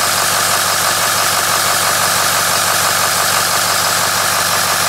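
Ford 6.0L Power Stroke V8 turbodiesel idling steadily and loudly, heard up close at its newly fitted variable-geometry turbocharger, running through a 4-inch straight-pipe exhaust.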